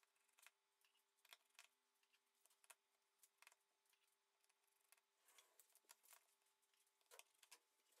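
Near silence, with faint, irregular small clicks of a precision screwdriver working the screws out of a phone's middle frame.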